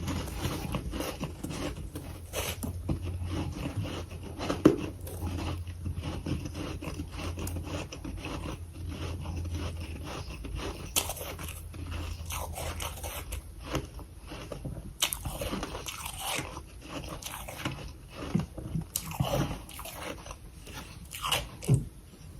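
Mouthfuls of soft, powdery freezer frost being bitten and chewed, a dense run of crunches with a few louder sharp bites.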